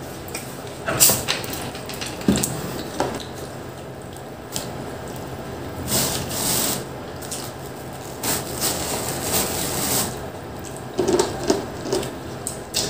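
Close-miked eating sounds: pizza slices handled and pulled off the box's paper liner with crinkling and rustling, with scattered small clicks and the chewing of pizza.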